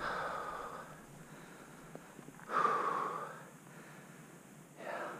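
A person breathing heavily close to the microphone: three long breaths roughly two and a half seconds apart, the middle one the loudest.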